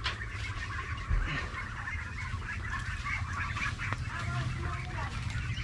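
A flock of 22-day-old native chickens peeping and chirping together, many short overlapping calls over a steady low rumble, with a single thump about a second in.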